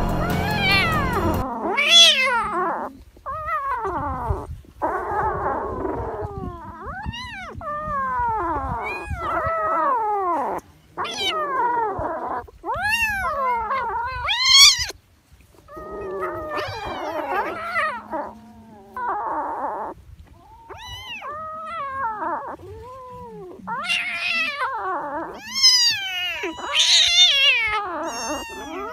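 Cats and kittens meowing over and over, a long run of high cries that each rise and fall in pitch, often overlapping, with a few short pauses between bouts.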